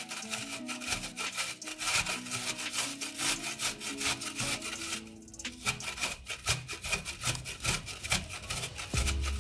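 Frozen chicken breast grated on a stainless steel box grater: quick, repeated rasping strokes with a short break about halfway through, over background music.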